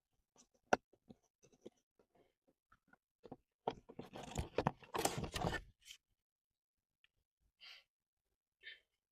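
Small clicks and taps of hand work on a phone, then about two seconds of loud crackling, tearing noise like plastic film or adhesive being peeled, and two short soft hisses near the end.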